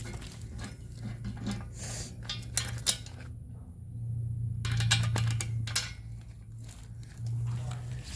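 Metal tow-bar hardware and tools being handled: scattered sharp clinks and clanks of bolts and steel parts, over a steady low hum.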